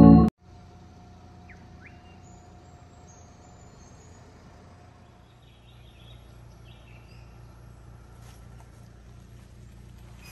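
Organ-like intro music cuts off right at the start. Then comes quiet outdoor forest ambience: scattered short bird chirps and whistles over a steady low rumble.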